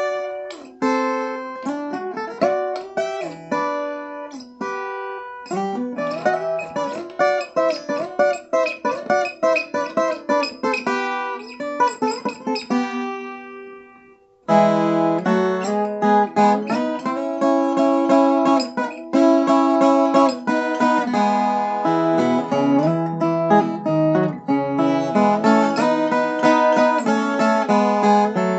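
Viola caipira, the Brazilian ten-string guitar strung in five double courses, played solo. A picked melody of ringing, decaying notes dies away about halfway through. After a brief gap, a denser, fuller strummed and picked passage starts.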